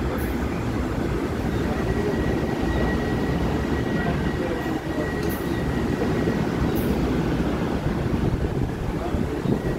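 LIRR M7 electric multiple-unit train pulling away over the tracks: a steady rumble of wheels on rail, with a faint high whine for a few seconds in the middle.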